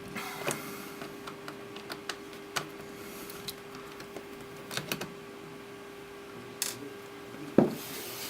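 Scattered small clicks and light taps of a screwdriver working screws out of a laptop's plastic screen bezel, with a sharper knock about seven and a half seconds in.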